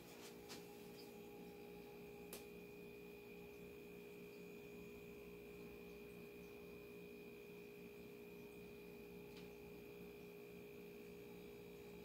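Faint, steady humming drone of a few held tones, with a thin high whine above it, of unknown origin; it is thought to come from outside.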